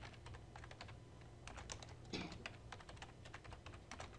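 Typing on a computer keyboard, a fast run of key clicks at about four a second, with one heavier key stroke about halfway through.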